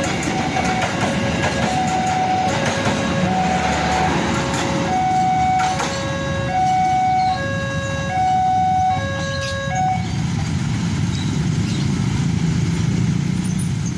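A railway level-crossing warning alarm sounds a two-note signal, high and low notes alternating and the pair repeating about every second and a half, over the rumble of a passing train. The alarm stops about ten seconds in as the crossing clears, leaving a low road-traffic rumble.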